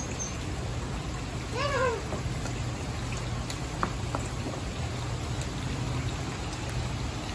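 Steady rain falling, with one short high-pitched cry that rises and falls about two seconds in.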